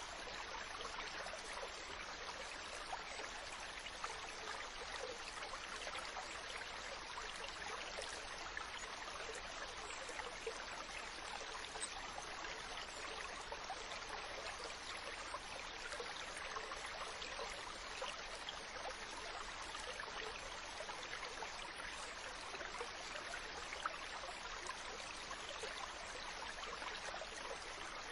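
Small stream flowing over stones: a steady, even babble of running water with fine splashy detail throughout.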